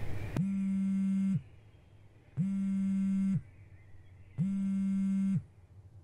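Mobile phone buzzing with an incoming call: three low buzzes, each about a second long, about two seconds apart.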